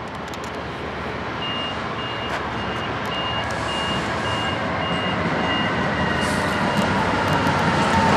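EWS Class 66 diesel locomotive, its EMD two-stroke V12 engine running, growing steadily louder as it approaches hauling a freight train. A high electronic beep repeats about twice a second through most of it.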